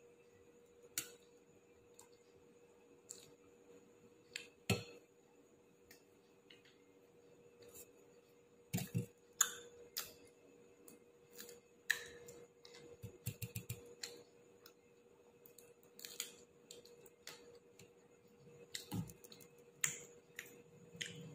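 A person eating roti, dal and raw green chillies: scattered small clicks and crunches of biting and chewing, with a quick run of ticks about two-thirds of the way through. A faint steady hum lies underneath.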